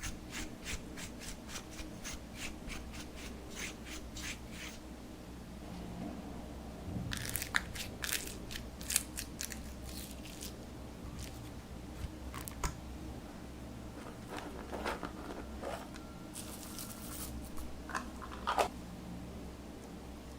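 Slime being worked by hand, giving a run of short crisp clicks and then bursts of crunchy crackling.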